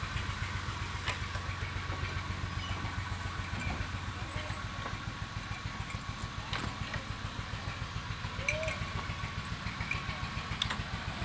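An engine running steadily, with an even, fast low thudding that does not change, a faint steady high tone above it and a few scattered clicks.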